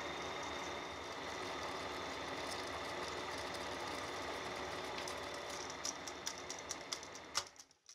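Sankyo Dualux 1000 8 mm film projector running steadily, its motor and film transport giving an even mechanical whir. In the last two seconds a series of sharp clicks comes irregularly, the loudest just before the sound cuts off.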